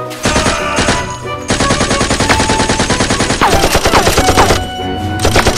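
Rapid automatic gunfire sound effect: long bursts of machine-gun fire with a short break near the end.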